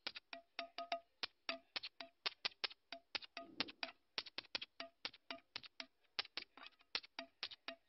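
Background music made of quick, sharp clicking percussion, several hits a second, some of them carrying short plucked-sounding notes.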